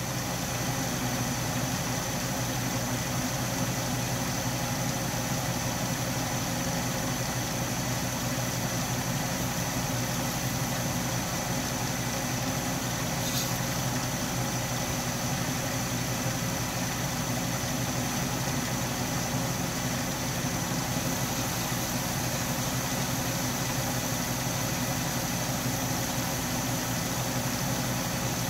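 Atlas 10-D metal lathe running steadily, its four-jaw chuck spinning while the tool turns a brass cross feed nut, an even mechanical hum throughout. One brief tick about halfway through.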